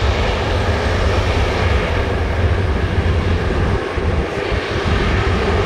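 Jet engines of a Korean Air Airbus A330 airliner running as it rolls along the runway: a steady, loud rush of engine noise over a heavy low rumble.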